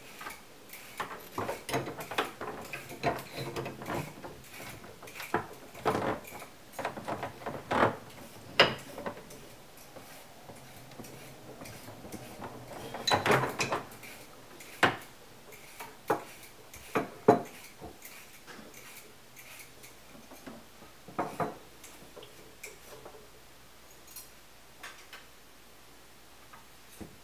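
Irregular clinks and knocks of hard objects being handled, dense at first, with a few louder knocks, then thinning out to scattered clicks.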